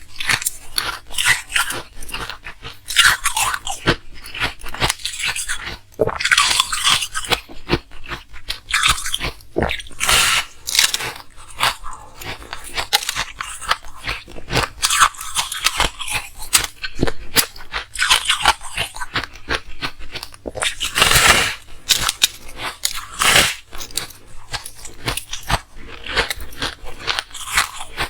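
Ice cubes being bitten and chewed close to the microphone: a dense, irregular run of sharp, crackling crunches, with brief gaps between bites.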